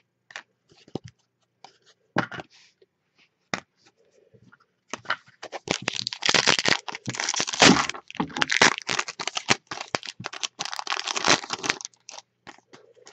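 A few faint clicks of cards being handled, then from about five seconds in a 2015-16 Upper Deck Trilogy hockey card foil pack being torn open and crinkled, a dense run of sharp crackles that stops near the end.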